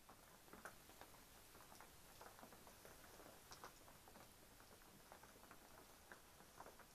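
Faint, irregular pattering of raindrops, a few soft taps a second over a light background hiss.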